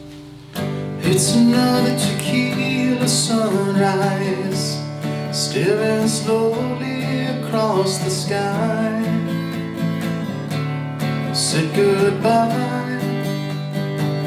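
Guitar strummed with a man singing along, a cover song at practice; the playing starts about half a second in.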